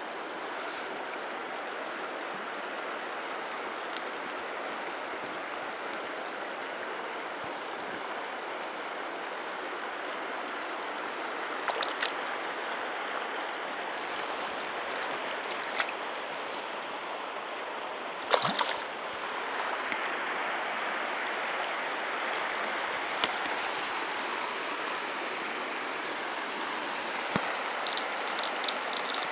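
Shallow river water running over stones, a steady rush with a few short sharp clicks, the loudest about eighteen seconds in.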